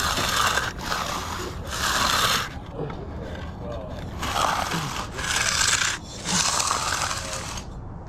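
A concrete finishing tool dragged across fresh concrete in repeated rough scraping strokes, about six strokes of roughly a second each, with a pause of about a second and a half midway.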